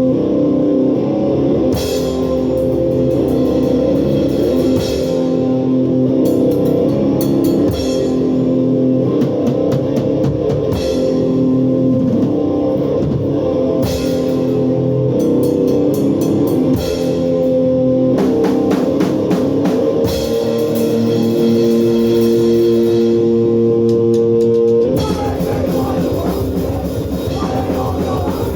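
Hardcore punk band playing loud and live: electric guitar and bass held over a drum kit, moving into a denser passage near the end.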